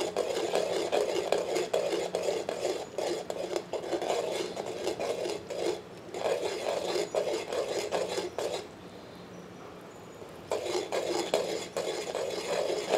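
A metal ladle stirring a thin yogurt gravy briskly in a metal pot, scraping and clinking against the bottom and sides. It is kept moving fast on high heat so the yogurt doesn't split before it boils. The stirring stops for about two seconds a little past the middle, leaving only a faint low hum.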